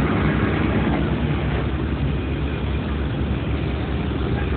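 Diesel engine of a SANY crawler crane running steadily, a dense, rapid low pulsing.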